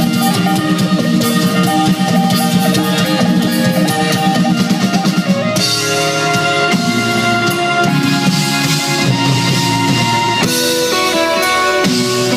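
Live progressive rock band playing an instrumental passage on drum kit, electric bass, electric guitar and violin. The busy drumming eases about halfway through, leaving held notes over a lighter beat.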